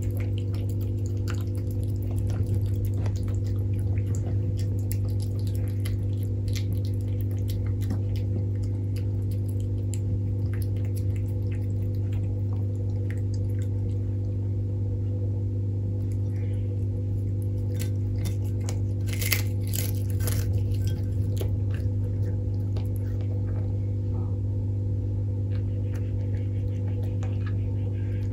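A steady low hum, with scattered small clicks and a brief run of louder clicks about two-thirds of the way through.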